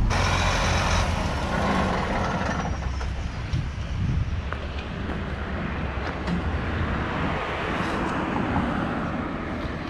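Steady motor-vehicle noise, engine rumble mixed with road noise, which changes character about a second in.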